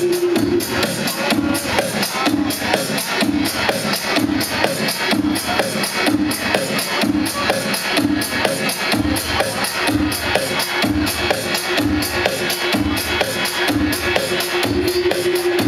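Electronic dance music played loud over a club sound system: a steady beat about two a second with a repeating synth note, and deep bass that comes in about nine seconds in.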